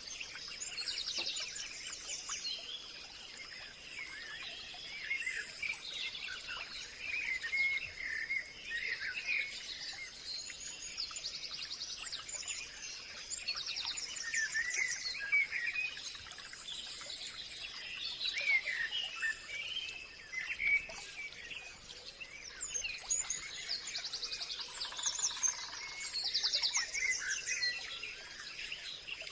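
A chorus of several birds chirping and singing at once, with quick slurred notes and rapid high trills that overlap throughout. A thin, steady high-pitched tone runs underneath.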